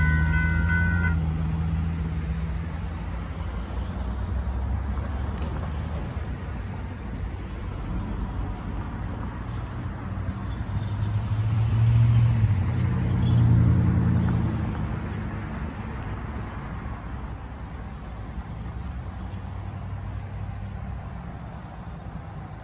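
Railroad crossing bell ringing as the gates rise, cutting off about a second in. Then road traffic: cars driving over the crossing, with one engine passing loudly about halfway through before the traffic noise fades.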